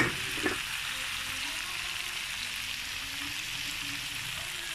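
Beaten egg sizzling steadily in hot oil in a wok, together with the fried chilli paste and prawns. A metal spatula clacks against the wok twice near the start.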